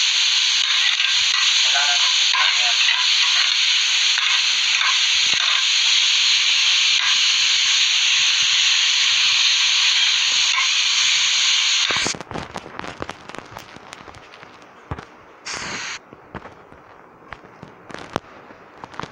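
Onion, garlic and ground pork sizzling in a pan as they are sautéed: a loud, steady hiss. About twelve seconds in it stops abruptly, leaving quieter scattered clicks and crackles.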